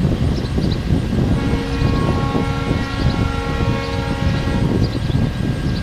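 A horn sounds one steady chord for about three seconds, starting about a second and a half in, over a rumble of wind on the microphone.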